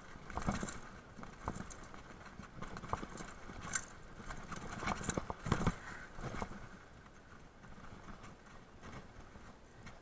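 Mountain bike clattering over a rough, stony trail: irregular knocks and rattles as the tyres hit rocks and the bike jolts, busiest in the first six seconds and lighter after.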